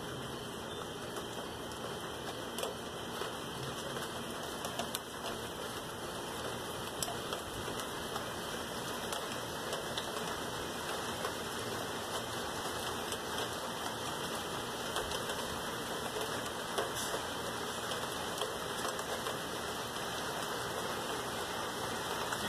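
Steady rain falling, a constant hiss with scattered drops ticking close by.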